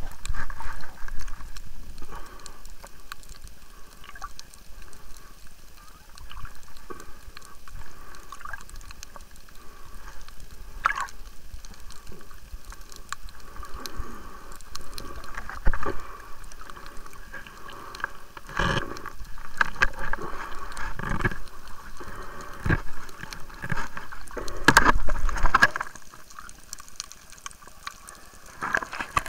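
Water sloshing and splashing close to the microphone, broken by several loud knocks.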